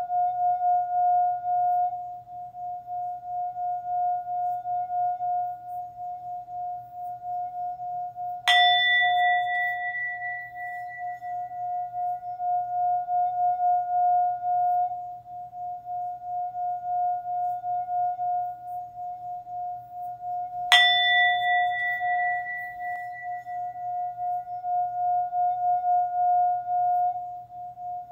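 Singing bowl ringing with a steady, pulsing tone, struck twice more, about eight seconds in and again about twenty-one seconds in, each strike adding higher ringing overtones that fade away over a few seconds.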